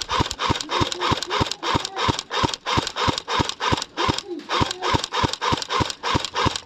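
Running footsteps, an even rhythm of about three and a half steps a second.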